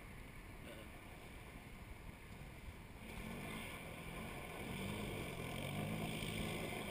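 Honda TRX300EX quad's single-cylinder four-stroke engine revving as the quad comes closer, growing louder from about three seconds in, its pitch rising and falling with the throttle.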